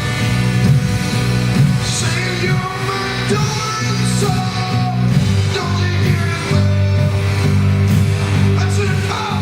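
Live church worship music: drums under sustained low chords with a man singing, the bass shifting lower about five seconds in.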